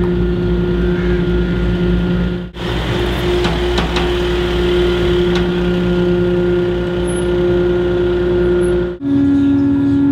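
Volkswagen Grand California camper van driving slowly, a steady engine drone over low road rumble. The sound drops out briefly about two and a half seconds in and again near the end, after which the drone sits at a slightly different pitch.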